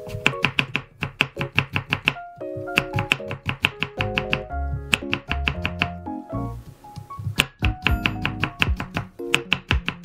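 Kitchen knife julienning carrot slices into matchsticks on a wooden cutting board: a fast run of knocks of the blade on the board, about five or six a second, with a couple of short pauses.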